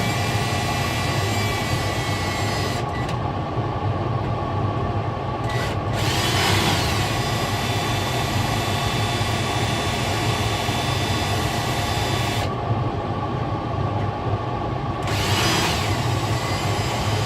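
Cordless drill with a number 40 bit drilling out the rivets of an aircraft instrument panel, the motor running steadily. Twice, about six seconds in and near the end, there is a brief high sweep in the sound.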